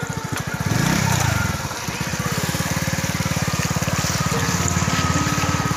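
A small engine running steadily with a fast, even pulse, revving up and back down briefly about a second in.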